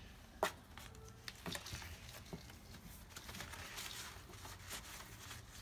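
A kitten scrabbling about and batting a small ball inside a cardboard box lined with paper. Scattered knocks and scratches sound on the cardboard, along with paper rustling, and the sharpest knock comes about half a second in.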